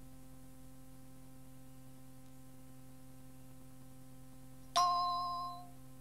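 A single bell-like cueing chime strikes near the end and fades out over about a second, over a faint steady hum. On a pre-recorded answering-machine announcement cassette, the chime is the cue to start the answering machine recording.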